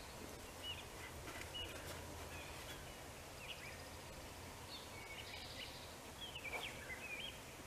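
Faint songbird chirps, short scattered calls and brief whistled glides, over low outdoor background noise, with a few soft rustles, the clearest near the end.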